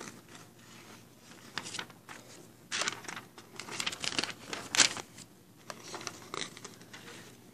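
Rustling and crinkling of items being handled, in a few irregular bursts that are densest about three to five seconds in.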